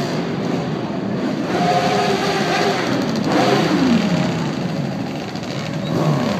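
Several motorcycle engines running loudly together, with revs rising and falling; twice a pitch slides down, about three and a half seconds in and again near the end.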